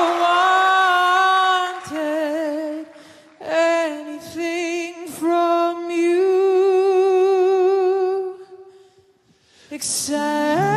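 A high male voice singing solo with strong vibrato on long held notes, broken by short pauses. It fades almost to nothing shortly before the end, then comes back with a rising swoop.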